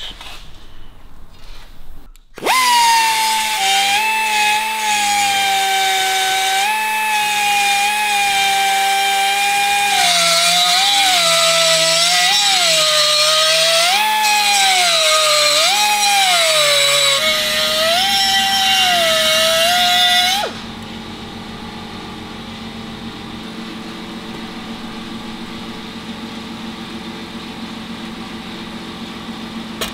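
Dremel rotary tool grinding out a gauge hole in an aluminium panel. It starts about two seconds in with a high whine, and its pitch dips and recovers again and again as the bit bites into the metal. It cuts off suddenly a bit past two-thirds of the way through, leaving a quieter steady hum.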